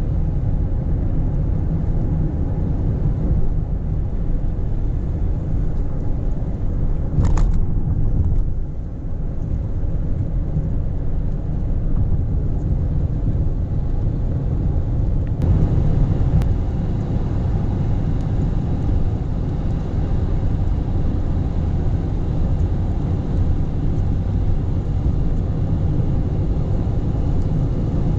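Steady low road rumble inside a moving car on a wet rural road, tyres and engine running evenly. A brief hiss about seven seconds in, and from about fifteen seconds the tyre noise gets a little brighter.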